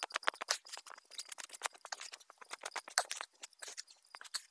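Steel wool pad rubbed back and forth over the finished surface of a wooden tabletop, a dense, crackly scratching made of many small irregular clicks.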